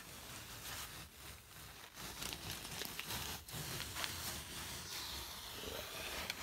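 Faint handling noise from a handheld camera being moved along a beam: irregular rustling with scattered light clicks and knocks.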